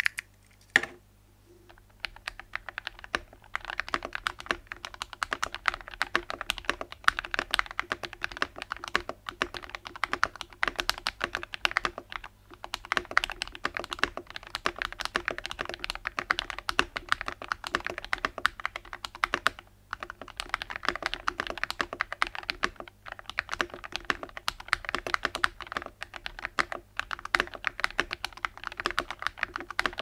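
Fast, steady typing on a 60% mechanical keyboard with 205g0-lubed Akko CS Matcha Green tactile switches, PBT keycaps, a polycarbonate plate and the tempest tape mod: a dense run of keystroke clacks with a few brief pauses. A single keystroke stands alone in a short lull at the start before the typing picks up.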